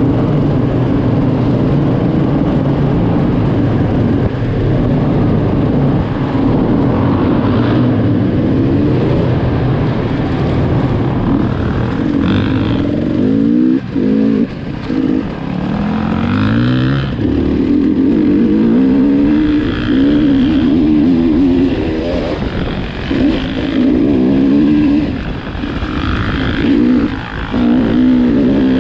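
Enduro motorcycle engine under way, its revs rising and falling over and over as the throttle is worked, with a few brief dips in the middle and near the end.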